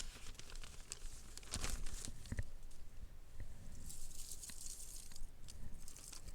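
Sheets of paper being handled and torn, with irregular crinkling rustles and a few sharp clicks; the rustling is strongest in two spells in the second half.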